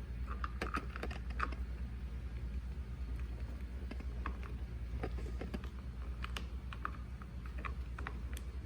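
Irregular small clicks and ticks of a screwdriver working screws all the way out of a motorcycle handlebar switch housing, over a steady low hum.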